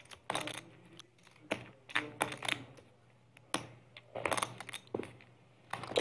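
Poker chips clicking together in short clattering clusters as players handle and stack them at the table.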